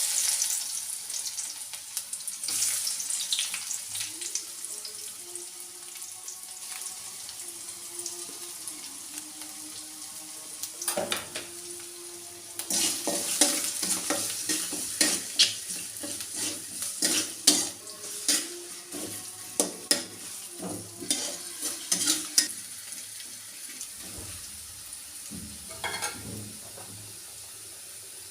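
Food sizzling in hot oil in a cooking pan, with a spatula repeatedly knocking and scraping against the pan for about ten seconds in the middle.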